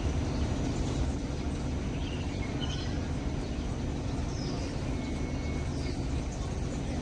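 Steady low hum and rumble of a Hong Kong Light Rail train at a platform, with a few faint high chirps over it.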